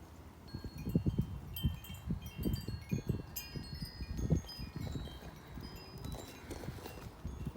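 Gusty wind sets off a light, high-pitched tinkling of many short ringing chime notes, busiest in the first half. Wind buffets the microphone in low, uneven rumbles.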